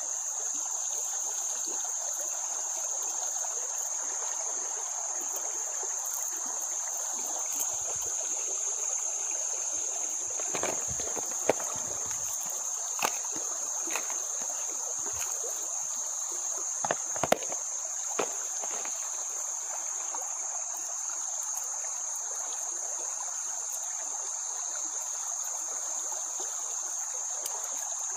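Insects droning in one steady high-pitched band over a soft, even hiss of water, with a few sharp clicks and knocks about halfway through.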